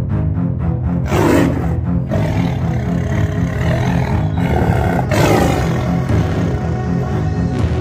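Horror film score with a pulsing low rhythm, cut by two loud monster roars, one about a second in and one about five seconds in, each sweeping down in pitch and fading.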